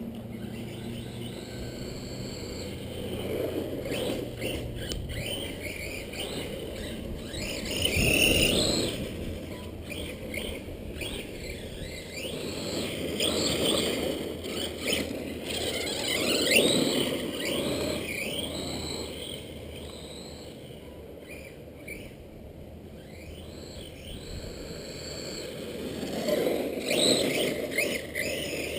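Redcat Shredder XT electric RC monster truck driving in sand: its motor whines, rising and falling in pitch as it speeds up and slows, over the rush of drivetrain and tyres. The loudest surges come about 8 s and 16 s in and again near the end.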